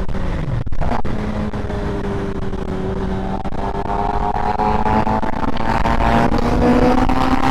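Suzuki GSX-R600 sportbike's inline-four engine running at steady cruising revs, heard from the rider's seat over a constant rush of wind noise. Its pitch rises slightly near the end as the bike speeds up a little.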